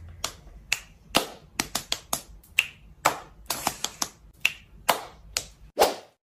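A run of sharp clicks and snaps at an irregular pace, about two or three a second, with a duller, heavier smack near the end.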